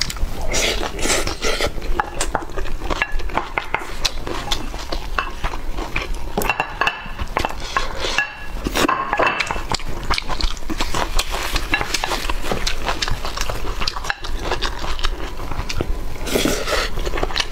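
Close-miked eating sounds: chewing and biting into spicy braised pork belly with rice, heard as many small irregular clicks and smacks, with utensils clinking against dishes.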